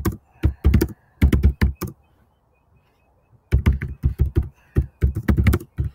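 Typing on a computer keyboard: a run of keystrokes, a pause of about a second and a half, then a quicker, denser run of keys to the end.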